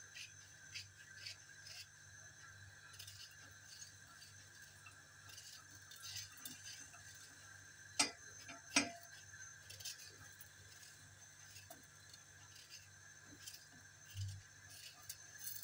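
Faint knife ticks as an onion is cut by hand over a stainless steel pot, with two sharper clicks about eight and nine seconds in.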